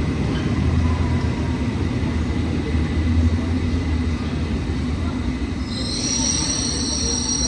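London Underground S7 Stock train running with a steady low rumble; a high-pitched squeal of several held tones sets in near the end.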